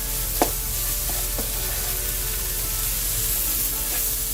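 Ground chicken, mushroom and rice filling sizzling steadily in a frying pan as it is stirred, with a sharp click of the stirring utensil against the pan about half a second in and a lighter one a second later.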